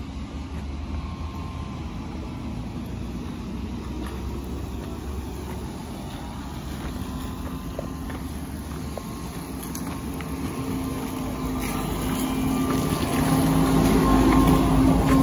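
ZiU-682V trolleybus running, a low rumble with a faint steady electric whine, both growing louder over the last few seconds.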